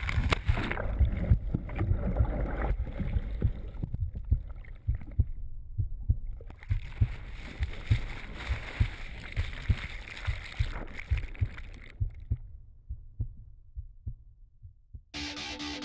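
Churning whitewater heard through an action camera mounted on an outrigger canoe as a big breaking wave swamps the canoe and tumbles the camera underwater: muffled rushing water with irregular low thumps. It fades out near the end, and music starts just before the end.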